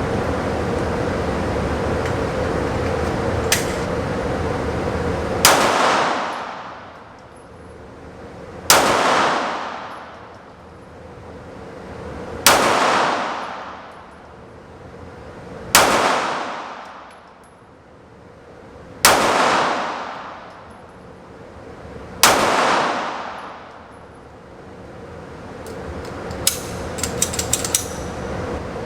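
Six single shots from a Sig Sauer P365XL 9mm pistol, fired slowly about three seconds apart, each trailing off in a short echo, over a steady background hum. A few light metallic clicks of handling come near the end.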